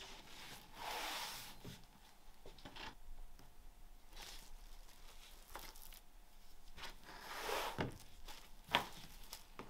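Clear plastic stretch film pulled off a hand roll and smoothed over flat boards: intermittent rustling, crackling swishes, with a few light knocks.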